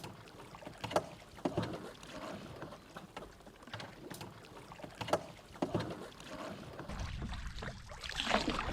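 Canoe paddling: the paddle swishes through the water on each stroke, with a couple of sharp knocks, likely the paddle touching the canoe.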